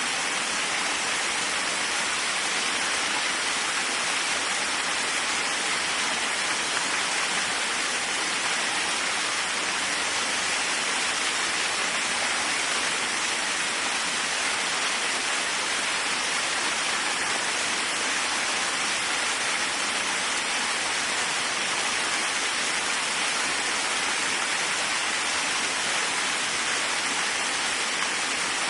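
Waterfall: water falling and splashing in a steady, unbroken rush, mostly a high hiss.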